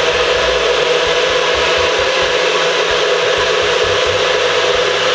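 Nutribullet blender motor running steadily at full speed, blending a thick, fruit-heavy berry shake in a second quick blast.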